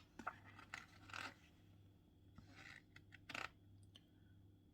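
Faint handling noise: a few brief rustles and scrapes, the strongest about three and a half seconds in, over a low steady hum.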